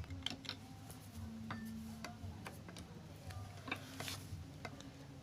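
Scattered light clicks and taps of small metal parts being handled as a screw is worked into a slightly misaligned hole on a sewing machine part.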